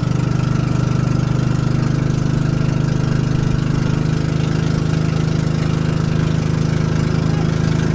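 Motor boat's engine running steadily while under way, a fast even putter over a low hum.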